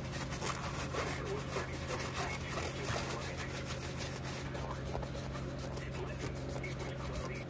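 Blue shop towel rustling and rubbing as gloved hands fold it and wipe down a pocket knife's blade and handle, in many irregular short strokes. A steady low hum runs underneath.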